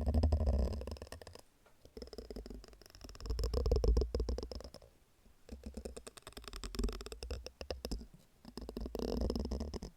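A soft silicone object rubbed and worked close to the microphone, giving a rapid clicking rattle over a deep rumble. It comes in four bouts of about two seconds each, with short lulls between them.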